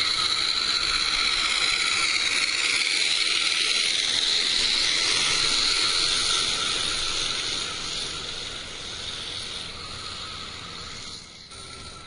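Accucraft Ruby live-steam locomotive, fitted with a Summerlands Chuffer, running with a loud, steady hiss of steam exhaust. The hiss fades after about eight seconds as the engine draws away.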